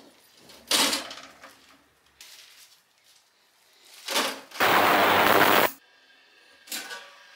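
Metal parts being put into the liquid-filled tank of an ultrasonic cleaner: sharp knocks and splashes, a loud rush of noise lasting about a second past the middle, and a last knock near the end as the stainless lid goes on.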